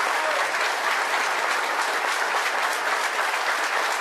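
A crowd applauding steadily, many hands clapping together.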